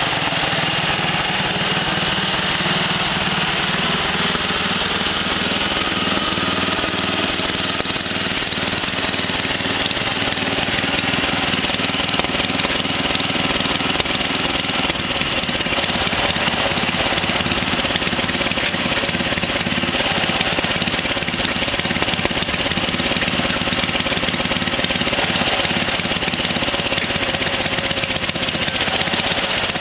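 LT11/36 garden tractor's engine running steadily as the tractor is driven, at an even pitch and level throughout.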